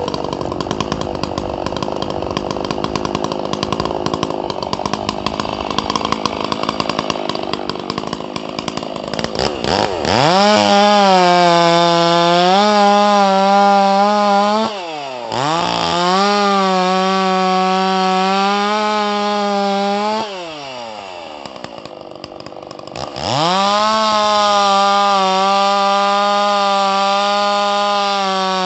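Custom-ported Stihl MS 660 two-stroke chainsaw idling roughly for about ten seconds, then opened up to full throttle three times, dropping back between bursts as the operator cuts into a log.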